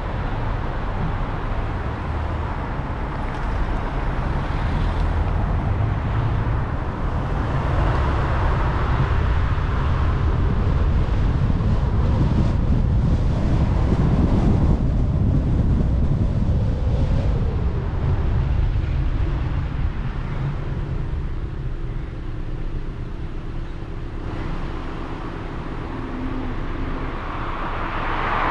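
A Kia Cerato driving on a suburban road, heard from a camera mounted on the car. Steady engine and tyre rumble grows louder at speed midway, then eases as the car slows and stops in queued traffic. A swell of traffic noise comes near the end.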